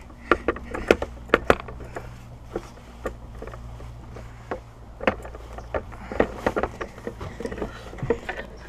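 Irregular footsteps and scattered knocks and clicks from walking through a derelict building, over a steady low hum.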